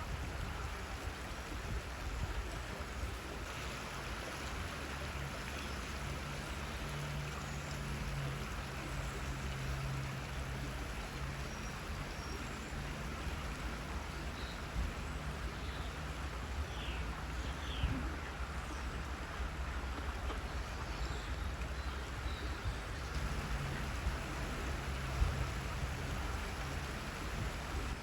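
Waterfall's water rushing in a steady, even wash, with a low hum underneath and a few faint short high chirps about halfway through.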